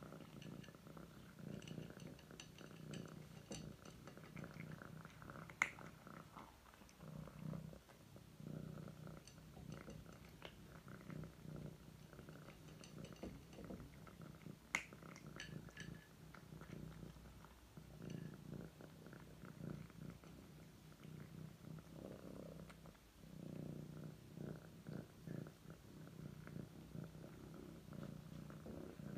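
Domestic cat purring in slow swells while it eats dry kibble, with many small crunching clicks as it chews. Two sharper clicks stand out, about five and fifteen seconds in.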